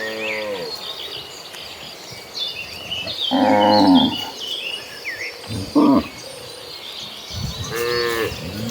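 Cattle mooing: several separate moos, the loudest and fullest about three to four seconds in, with a short call near six seconds and another near the end.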